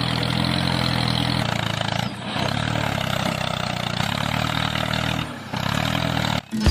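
Engine running steadily at a low, even pitch, dipping briefly about two and five seconds in and cutting off just before the end.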